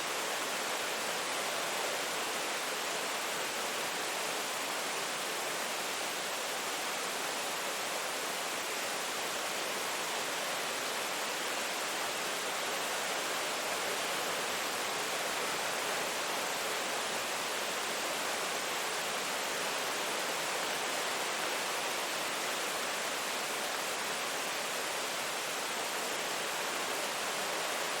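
Steady rain, a dense even hiss of falling drops without breaks or distinct impacts.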